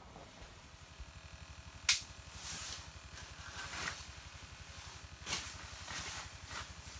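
Handling noise from a person working an ice rod with a baitcasting reel: a sharp click about two seconds in, then several soft rustling swishes. A low, fast, even flutter runs underneath.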